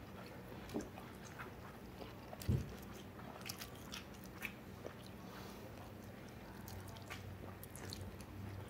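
Quiet mouth sounds of eating: soft biting and chewing with scattered small clicks, and one short low thump about two and a half seconds in.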